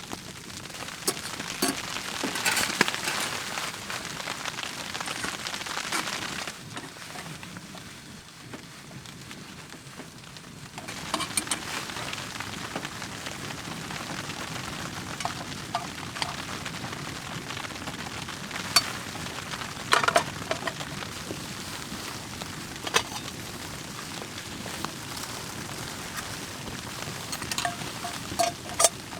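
Wood fire crackling in a small wood stove: a steady hiss with scattered sharp pops.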